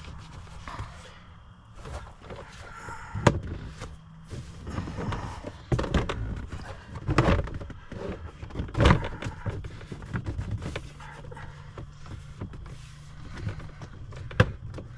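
Knocks and clicks of plastic dashboard trim being handled and pushed into place in an SUV's cabin around the glove box, with several sharper knocks, over a steady low hum.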